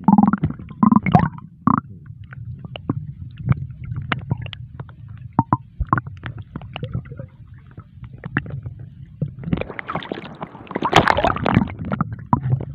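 Muffled underwater sound picked up by a submerged camera in shallow sea water: a steady low rumble with scattered sharp clicks and ticks, and a louder stretch of churning, bubbling water near the end.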